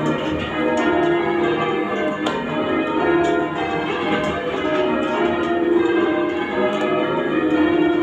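Bristol Cathedral's ring of eight bells (21 cwt tenor, tuned to E-flat) being rung in changes, heard from the ringing room below. Strike follows strike, each bell's tone ringing on into the next.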